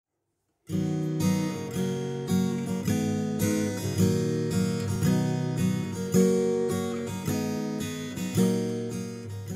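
Intro music of strummed acoustic guitar chords in a steady rhythm, starting about a second in and stopping near the end.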